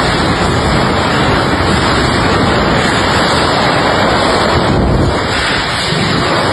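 Strong wind blowing hard, buffeting the microphone with a loud, steady rushing roar.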